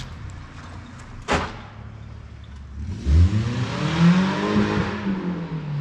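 A car engine revving, its pitch rising and then falling over about three seconds from around three seconds in. A single sharp clack about a second in.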